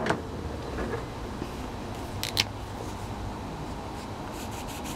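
A marker drawing lightly on paper, its scratchy strokes starting near the end, over a steady low rumble. Two sharp clicks come about two seconds in.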